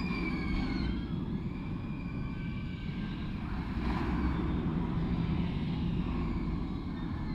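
Roar of a Montu train, a Bolliger & Mabillard inverted roller coaster, running on its steel track: a steady low rumble that swells about four seconds in. Thin, drawn-out high squeals sound over it in the first half.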